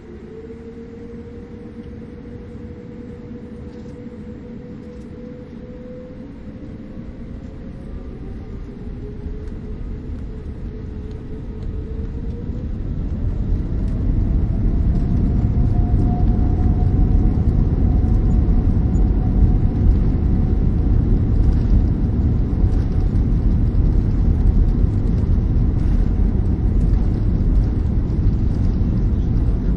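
Boeing 787-9 jet engines spooling up for takeoff, heard from inside the cabin: a rising whine over a low rumble that grows louder for about the first fourteen seconds, then holds as a steady, loud roar of takeoff thrust and the takeoff roll.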